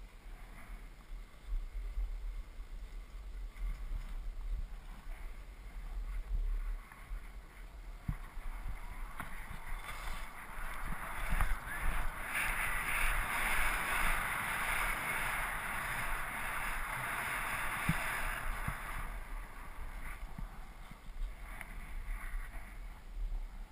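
Skis hissing and scraping over packed, tracked snow on a downhill run, louder through the middle stretch, with a steady low rumble of wind on the microphone.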